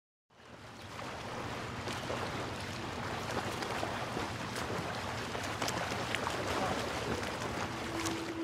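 Small waves washing in over shallow water and sand, a steady hiss with faint scattered splashes that fades in at the start.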